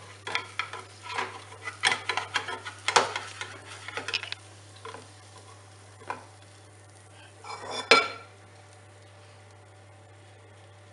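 Plastic spatula scraping and tapping against a non-stick frying pan, working a crisp fried parmesan wafer loose from the pan, in quick clicks and scrapes for the first four seconds. A few sparser knocks follow, then a last brief clatter at about eight seconds, after which only a steady low hum remains.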